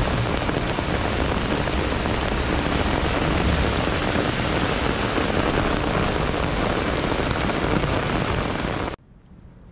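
Heavy rain pouring down on a wet street and pavement: a loud, steady hiss that cuts off abruptly near the end.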